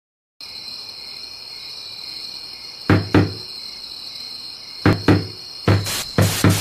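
Crickets chirring steadily, with short low thumps, two pairs about two seconds apart and then three closer together near the end.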